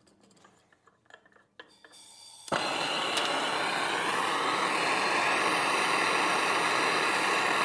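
Hand-held MAP gas torch: a few faint clicks and a low gas hiss, then it lights suddenly about two and a half seconds in and burns with a loud, steady flame hiss.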